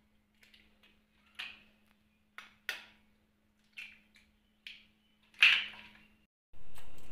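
Steel spoon tapping and cracking hen's eggs open over a glass bowl: a series of about six sharp taps and cracks, the loudest about five and a half seconds in. Near the end a steady hiss comes in suddenly.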